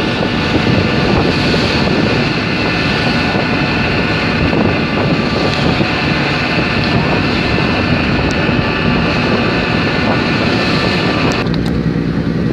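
A ship's engine drones steadily under wind buffeting the microphone and sea rushing past the hull. A steady high whine over it stops abruptly about a second before the end.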